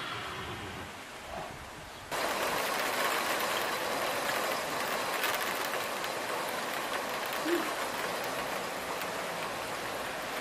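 Steady hiss of heavy rain falling, coming in suddenly about two seconds in after a quieter stretch.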